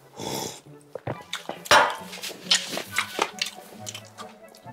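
A gulp of cola from a glass, then a sharp knock about two seconds in, followed by small clicks and rustles as a cardboard takeout box is handled. Background music plays underneath.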